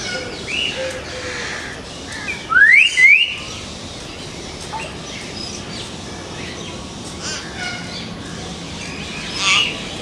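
Hill myna calling: a few short calls, then two loud rising whistles about three seconds in, faint chirps, and a harsher call near the end.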